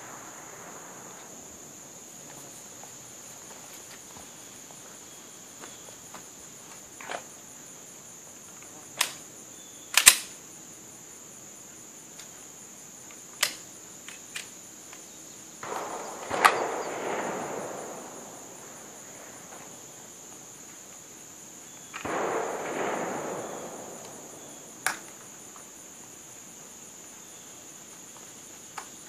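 Single gunshots from a handgun, fired one at a time at irregular spacing, a second or several apart, during a rhythm drill; the loudest comes about ten seconds in. A steady high insect drone runs underneath, and a few swells of rushing noise, each lasting a second or two, rise and fade.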